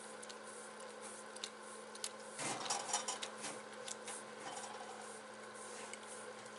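A sticker being peeled and scraped off a metal toolbox: scattered light clicks and taps, with a burst of scratchy scraping about two and a half seconds in.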